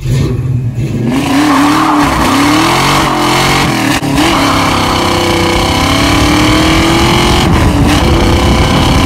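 A 1969 Mustang Fastback's 351 Windsor V8 with ported heads and an E303 cam, running hard on the road: it comes in about a second in, the revs rise and fall, and through the second half they climb steadily under acceleration.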